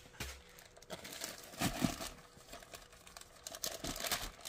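Small clear plastic baggie crinkling and rustling in short spells as it is handled and opened, with a couple of soft bumps about a second and a half in.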